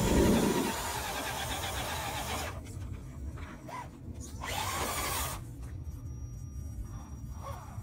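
Brushed electric motor and drivetrain of an Axial SCX10 scale RC crawler whining as its tyres spin and scrabble on loose dirt and rock, in two bursts: a longer one after a low thump at the start, and a shorter one about halfway. A low wind rumble on the microphone runs underneath.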